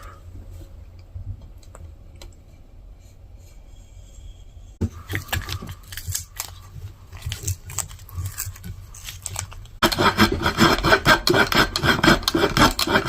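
Wooden handle stock being sawn by hand. The first few seconds hold only a low hum. Scattered scraping strokes start about five seconds in, and from about ten seconds a louder, rapid run of back-and-forth saw strokes sets in.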